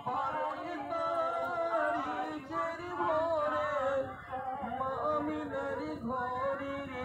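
Voices singing a melodic song, with long, wavering held notes.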